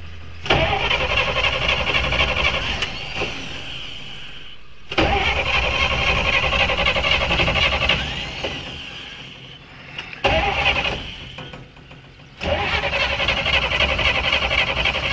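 The starter of a 1942 Chevrolet truck cranking its engine in four separate bursts with short pauses between them, the engine not yet catching. Each burst starts suddenly with a fast, even chatter.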